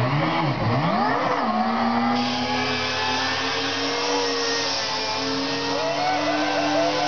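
Supercharged 13B bridgeport rotary engine in a Mazda RX-4 wagon, blipped up and down a few times, then held at high revs with a steady scream as the rear tyres spin in a smoky burnout.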